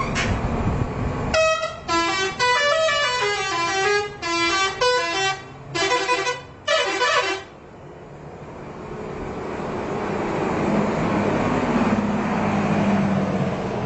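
Indonesian 'telolet' bus horn, a set of musical air horns playing a quick tune of stepping notes in several short bursts. After the tune a vehicle engine grows steadily louder as it approaches.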